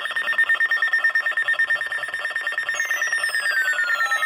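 Weather alert radio's alarm going off: a loud, rapidly pulsing high-pitched beep, with falling whistle-like tones joining in about two and a half seconds in. The alarm signals an incoming tornado warning.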